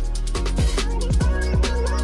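Background electronic music with a fast beat: deep kick drums that drop in pitch, quick hi-hats and a sustained bass note.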